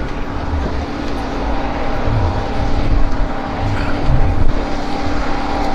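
Steady engine drone with a constant whine, over an irregular low rumble.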